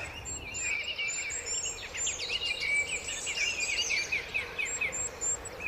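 Small songbirds singing in a forest: many rapid high chirps and quick falling trills overlapping, over a steady background hiss.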